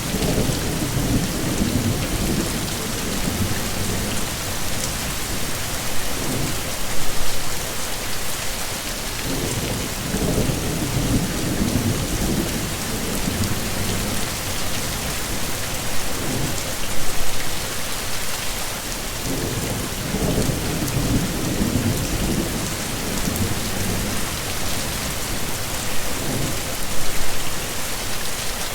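Heavy rain falling in a steady hiss, with low rolling rumbles of thunder swelling and fading again and again, and brief louder surges about every ten seconds.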